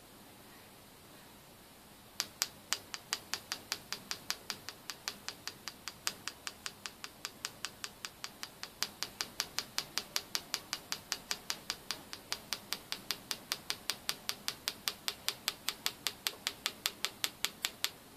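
Rapid, regular ticking, about four to five sharp clicks a second, starting about two seconds in, from a compressor wheel turning on a magnetic balancing jig.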